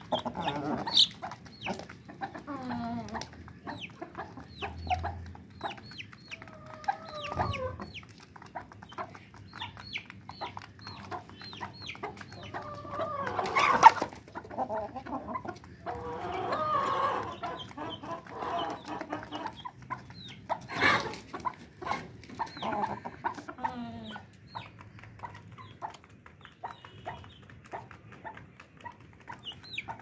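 Aseel-type game-fowl chickens clucking as they peck grain, over a steady run of short, high chirps. The clucking is strongest about halfway through, and there are sharp knocks at about the halfway point and two-thirds of the way through.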